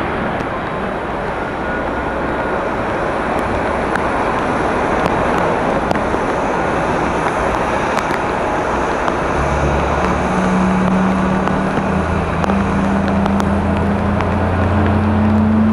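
Boeing 737-800 jet engines and the tyre spray on a wet runway making a steady rushing noise as the airliner rolls out after landing. About two-thirds of the way through, a low steady hum joins in and rises slightly in pitch near the end.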